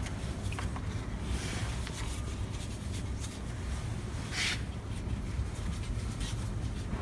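Light clicks and a short scrape about four and a half seconds in, from oiled packing rings and the spray pump piston being handled and fitted by hand, over a low steady hum.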